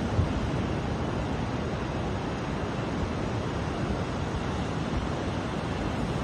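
Ocean surf breaking in a steady wash, with wind rumbling on the microphone.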